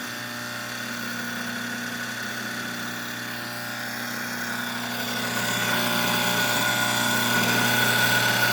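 Well pump switched on at the breaker: it starts abruptly and runs strongly, with a steady electric hum over a noisy rush, growing slowly louder.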